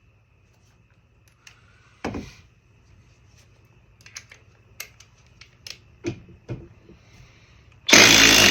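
A few knocks and clicks of handling, one heavier thump about two seconds in, then near the end a cordless impact driver starts hammering loudly in reverse, backing an 8-inch timber lock screw out of Douglas fir.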